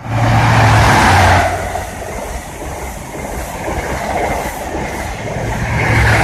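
InterCity 125 high-speed train passing through the station at speed: a loud rush at first, then a steady rumble and rail noise from the coaches, louder again near the end.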